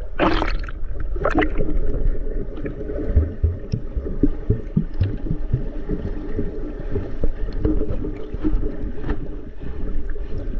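Water heard through an action camera held underwater by a swimmer: a short splash as it goes under at the start, then a steady low rush of water movement with scattered soft knocks.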